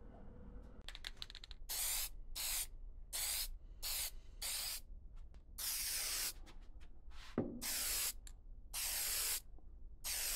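Aerosol rattle can of lacquer spraying in a series of short hissing bursts, about ten in all, a few of them held a little longer. A few quick ticks come just before the first burst, and a single sharp knock about seven seconds in is the loudest sound.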